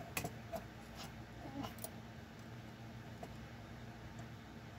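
Faint clicks and taps of plastic Lego pieces being handled and pressed together, a handful in the first two seconds, over a low steady hum.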